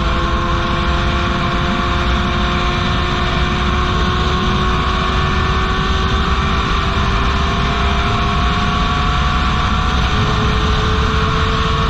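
2003 Yamaha R1's straight-piped inline-four engine running steadily, its pitch rising slowly and evenly, over a constant rushing noise.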